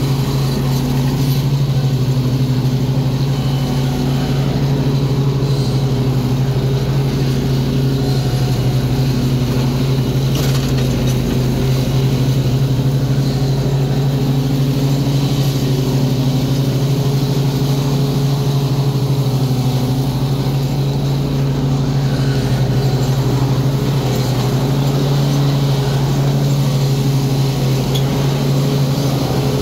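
Gravely stand-on mower's engine running steadily while it cuts grass, a constant low hum with no change in pitch.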